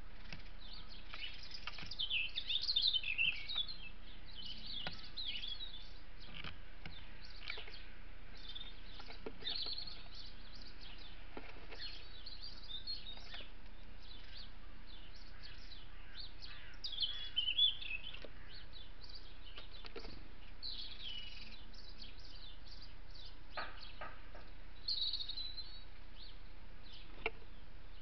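Small songbirds chirping and twittering in short, high, varied phrases, loudest about two seconds in and again around seventeen seconds, over a steady hiss.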